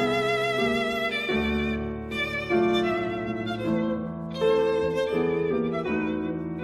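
Background music: a bowed violin melody with vibrato, moving from held note to held note over a lower string or piano accompaniment.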